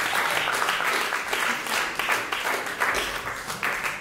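Audience applauding at the end of a live song, the clapping gradually dying away.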